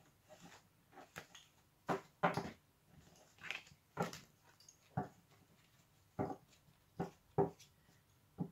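A deck of tarot cards shuffled by hand: a string of short soft card slaps and slides, roughly one a second at an uneven pace.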